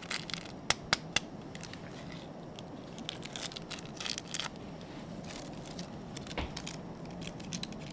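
A small plastic packet being handled and crinkled, with a few sharp clicks about a second in and a run of crackles a few seconds later, over the steady hiss of a portable gas canister stove burning under a pot.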